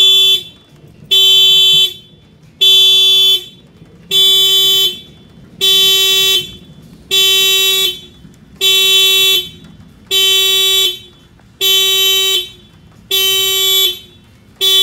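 2018 Honda Civic's factory alarm going off, its car horn sounding in steady, even pulses, about one every one and a half seconds. The alarm was set off by an added shock sensor when the tyres were struck.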